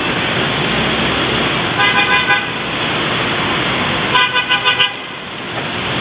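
Street traffic noise from a moving motorbike, with a horn honking in short toots: a few about two seconds in, then a rapid string of about five beeps just after four seconds.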